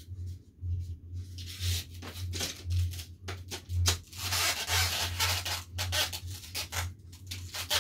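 Irregular rubbing and scraping handling noises with scattered clicks, loudest about four to five and a half seconds in, over a steady low hum.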